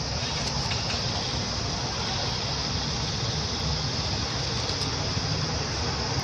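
Steady outdoor background noise: a constant high-pitched buzz over a low rumble, with a few faint clicks about half a second to a second in.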